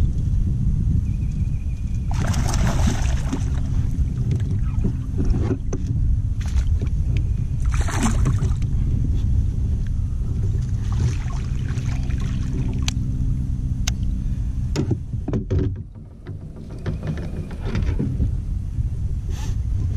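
Splashing and gear knocks as a largemouth bass is fought on rod and reel beside a kayak and brought to the landing net. Two louder splashy bursts come about two and eight seconds in, with scattered sharp knocks over a steady low rumble.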